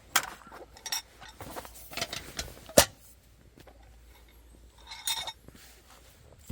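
Metal camp cookware or utensils being handled: a series of separate clinks and knocks. The sharpest knock comes a little under three seconds in, and a brief ringing metallic clink comes about five seconds in.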